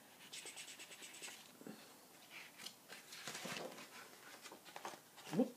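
Fingertips scratching rapidly on a glossy picture-book page for about a second, then paper rustling as the page is turned.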